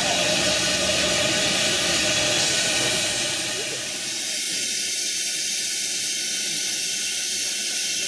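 Steam hissing steadily from a standing narrow-gauge steam locomotive in steam.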